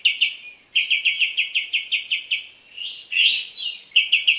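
Kapas tembak bulbul calling as a trapping lure: a fast, even series of sharp chirps, about seven a second, broken about three seconds in by a louder, harsher sweeping call.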